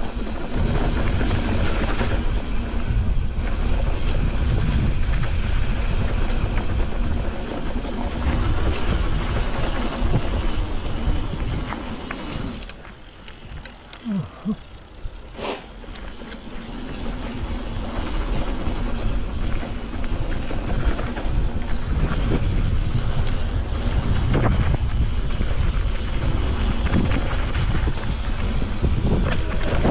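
Wind buffeting the microphone over the rumble and rattle of a mountain bike running down a rough dirt trail. About halfway through it goes quieter for a few seconds, with a short squeak and a click, before the wind and rumble pick up again.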